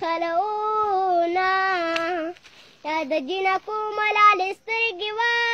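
A young boy singing a Pashto song unaccompanied, holding long, wavering notes. He breaks off for about half a second a little past two seconds in, then sings on.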